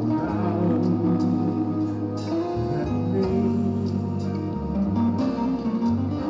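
Live worship band playing a slow song between sung lines: a strummed acoustic guitar over held bass notes, with light percussion hits about once a second.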